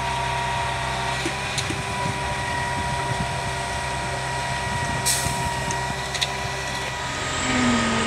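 Diesel engines of a concrete mixer truck and a concrete pump truck running steadily, with a short hiss about five seconds in and a few sharp knocks.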